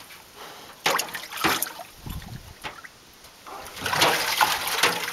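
Water sloshing and splashing in a bathtub as a pig moves about in it, with a few sharp knocks early on. The splashing grows louder near the end as she heaves herself up to climb out.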